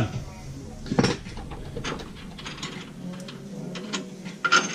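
Metal clicks and clatter of tools and a removed suspension bolt being handled, with one louder knock about a second in and a quick run of clicks near the end.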